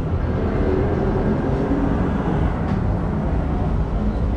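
Steady traffic noise from a busy city avenue: vehicle engines and tyres making a continuous low rumble.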